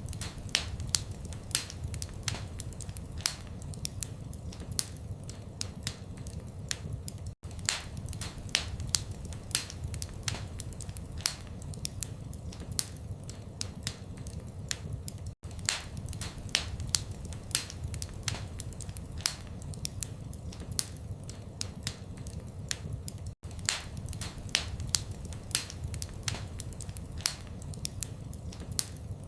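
Wood fire in a fireplace crackling steadily, with dense sharp pops and snaps over a low rumble of flame. The sound cuts out for an instant about every eight seconds, as at the seam of a repeating loop.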